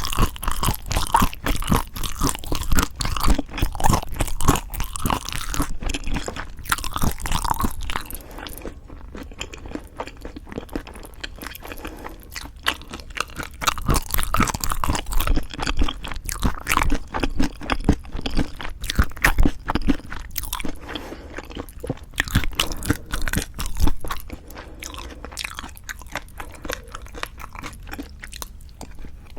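Close-miked eating sounds: a person chewing food with dense, crisp crunching and wet mouth sounds, going softer for a few seconds about a third of the way in and again near the end.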